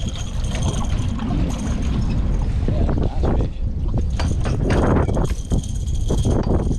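Wind rumbling on the microphone aboard a fishing boat, with scattered knocks and two short rushes of noise about three and five seconds in.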